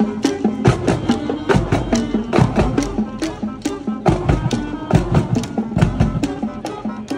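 School marching band playing: brass holding notes over a drumline's steady beat of about two to three strikes a second.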